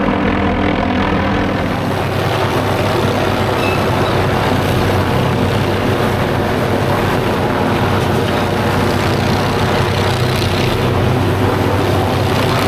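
MD 500D turbine helicopter running steadily, with a fast, even rotor beat under a turbine whine.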